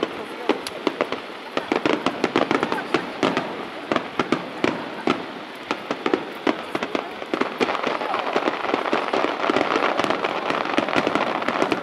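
Aerial firework shells bursting in a rapid barrage: many sharp bangs and pops following close on one another at irregular intervals, thickening into a near-continuous crackle in the second half.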